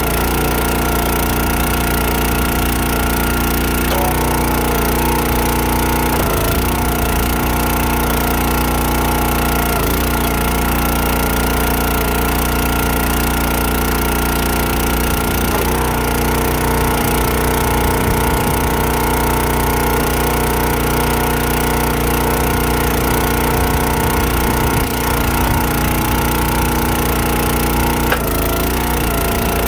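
Countyline 25-ton log splitter's small gas engine running steadily, with its pitch shifting a few times as the hydraulic ram works, while logs crack and split on the wedge.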